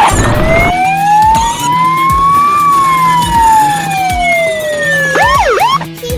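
Police siren wailing: one slow rise and fall in pitch, then a few quick yelps near the end. A short burst of noise comes right at the start.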